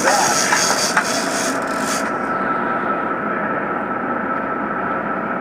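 Steady drone of a sportfishing boat's engines under way, with a rasping high hiss over it for about the first two seconds.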